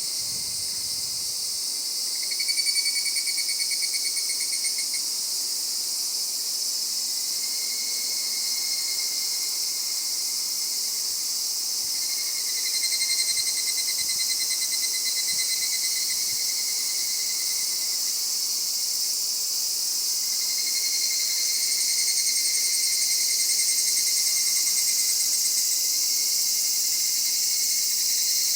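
Higurashi evening cicadas (Tanna japonensis) calling: four long, rapidly pulsing trills of a few seconds each, the last and longest starting about two-thirds of the way in, over a steady high insect chorus.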